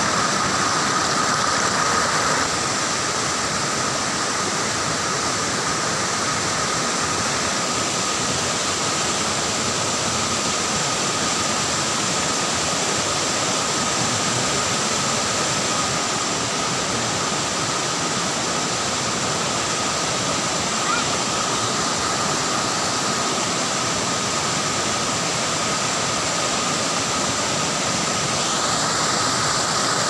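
White water of a rocky forest river rushing and cascading over boulders, a steady unbroken rush, with a thin steady high tone above it.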